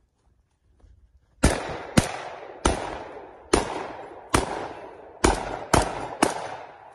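A competitor's firearm firing a string of about nine shots, starting about a second and a half in, spaced roughly half a second to a second apart, each followed by a ringing echo.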